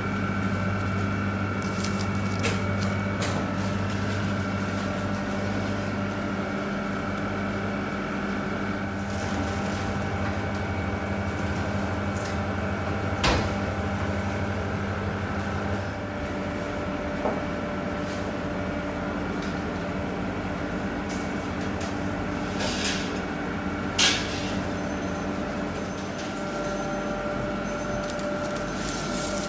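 Steady hum of bakery kitchen machinery (ovens, fans and refrigeration), with a few sharp knocks and clatters from trays and work surfaces. The low part of the hum drops about halfway through.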